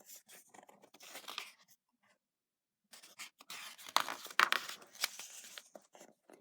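Paper rustling and crinkling as the pages of a picture book are handled and turned, in two spells, the second louder.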